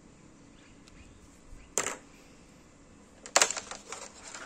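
Handling noise: one sharp click a little under two seconds in, then a short cluster of clicks and rattles near the end as the aluminium LED batten light and its wire are handled.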